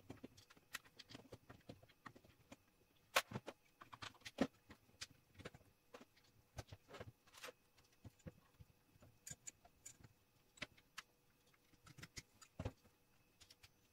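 Faint scattered clicks and taps of small metal parts and hand tools being handled during hand assembly of a rotary engraver attachment, with a few sharper knocks about three seconds in and near the end.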